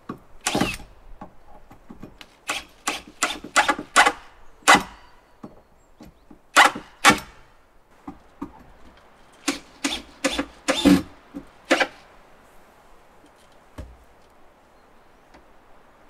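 Cordless drill/driver run in short trigger bursts, driving screws into the timber frame. The bursts come in clusters: one about half a second in, a quick run of about seven between roughly 2.5 and 5 seconds, two near 7 seconds, and another run of about six between roughly 9.5 and 12 seconds.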